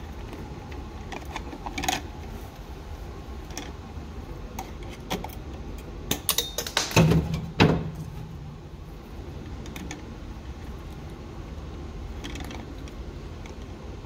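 Stiff copper wires being handled and pushed into place inside a plastic electrical box: scattered clicks, scrapes and light knocks, the loudest a few sharp knocks about seven seconds in.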